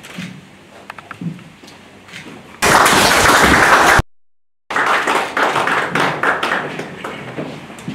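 Paper and pen handling with small taps, then applause breaks out loudly about two and a half seconds in. It cuts out for a moment about four seconds in, then resumes with sharp clicks.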